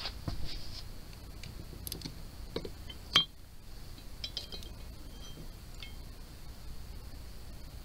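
Plastic spinning-reel spool knocking and clinking against a glass jar of water as it is lifted out. There are several light knocks, with one sharp ringing clink about three seconds in.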